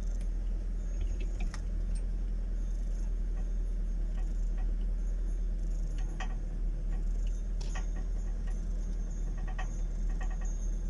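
Rattling from inside an old Fiat Panda: scattered light clicks and jingles over the steady low drone of the car running.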